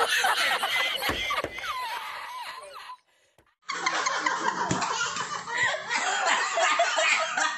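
A man laughing hard, then a brief cut to silence about three seconds in, then another man laughing loudly.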